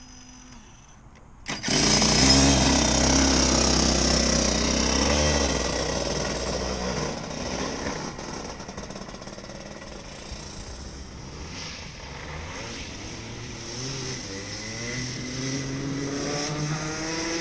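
Racing-drone motors whining together with a 125 cc two-stroke go-kart engine. The mix comes in loud about a second and a half in. The engine sound then fades as the kart pulls away, and rising revs are heard near the end.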